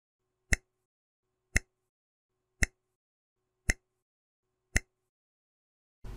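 Countdown-timer sound effect: five short, sharp ticks, one a second.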